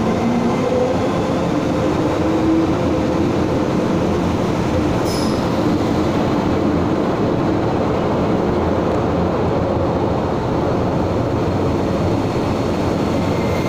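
MTR M-Train electric multiple unit pulling out along the platform, a steady rumble of wheels on rail with a motor hum that rises in pitch over the first few seconds. A brief high wheel squeal comes about five seconds in.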